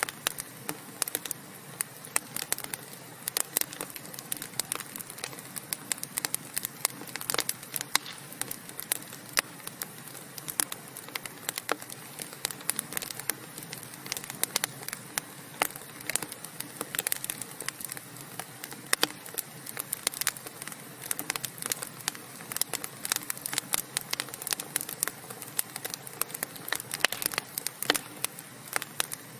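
Wood fire burning: dense, irregular crackles and pops of burning logs over a steady low hiss.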